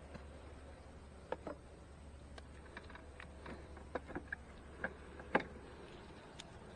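A scattering of light, irregular clicks and knocks from a hive tool and wooden hive frames being worked loose in a beehive box.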